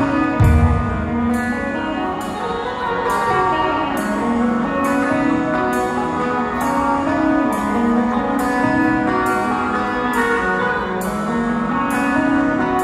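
Post-black metal band playing live, heard from the crowd: layered electric guitars ringing in sustained chords, with a deep low hit about half a second in.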